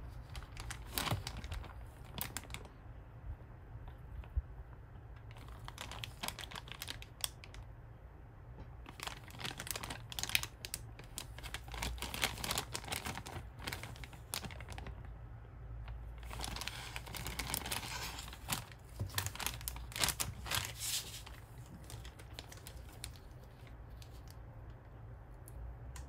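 Thin clear plastic toy bag crinkling and rustling as it is handled and opened and the toy is taken out, in bursts with short pauses between, quieter near the end.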